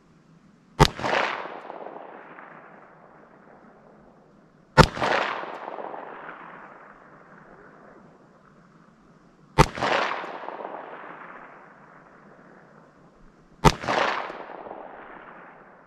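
Four shots from a Smith & Wesson Model 15 .38 Special revolver, fired slowly about four to five seconds apart, each followed by a long echo dying away.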